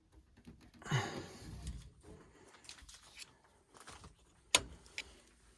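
Quiet handling of furnace parts while the hot surface igniter's wire plug is fitted: a short rustle about a second in, then a sharp click about four and a half seconds in and a lighter click half a second later.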